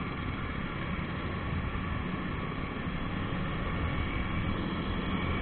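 Jawa 42 motorcycle running at steady riding speed, its engine drone mixed with wind rushing over the microphone.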